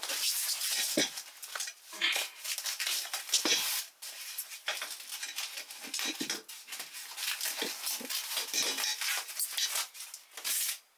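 Foam and plastic packing wrap rustling and crinkling in quick, irregular bursts as metal chair legs are unwrapped, with a few light knocks.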